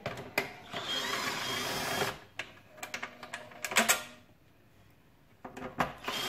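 Cordless screwdriver whirring in a run of about a second and a half, then clicks and knocks of metal oven-door parts being handled, and the screwdriver starting again near the end.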